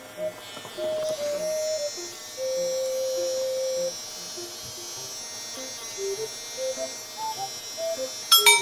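Background music with a light stepping melody over the steady whine of a cordless vacuum pet clipper trimming the fur between a husky's paw pads. A short chime sounds near the end.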